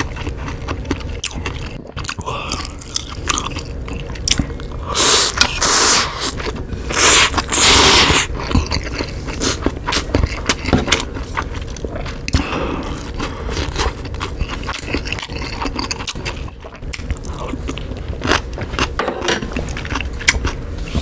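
Close-miked chewing of ramen noodles: steady moist smacking and clicking of the mouth. About five and seven seconds in come two loud airy hisses through the mouth, each about a second long.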